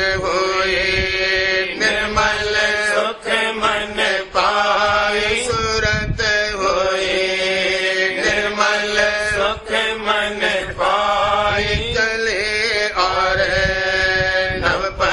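Devotional hymn (shabd) sung in a chanting style, with long held notes over a steady drone and regular drum strokes.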